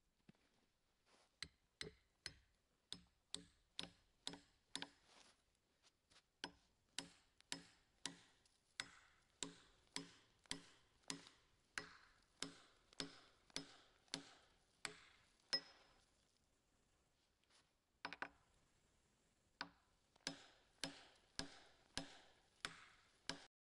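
A hand tool striking wood in steady, sharp blows, about two a second. The blows pause for a couple of seconds and then carry on.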